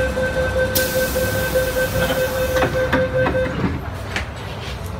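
MTR door-closing warning tone sounding steadily for about three and a half seconds, with a hiss partway through, as the train doors and platform screen doors shut with a few knocks near the end of the tone.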